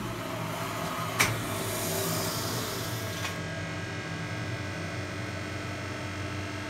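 Hydraulic elevator power unit with a new OMAR valve block running: a steady mechanical hum from the pump motor, with a click about a second in and a hiss that stops about three seconds in.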